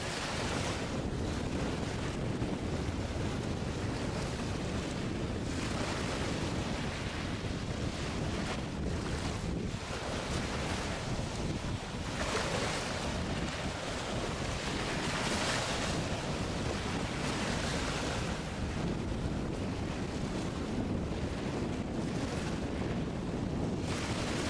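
Wind blowing across the microphone in uneven gusts over the steady wash of water.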